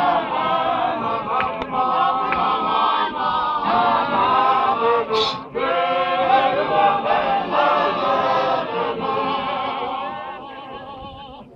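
A men's choir of ZCC Mokhukhu members singing a hymn together without instruments. The singing fades away near the end.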